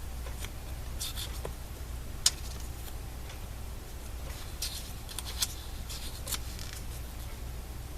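Paper rustling and light clicks as pages of a small scrapbook paper pad are turned and handled, a few short rustles one to two seconds apart, with a sharp tick about two seconds in, over a steady low hum.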